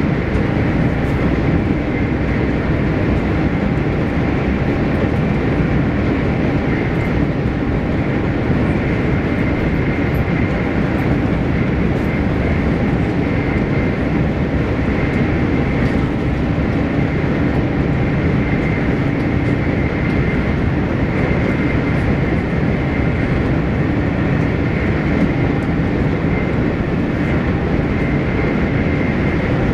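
Steady cabin noise of a Spanish AVE high-speed train running at about 185 mph (300 km/h): an even, constant rushing noise with faint steady hums.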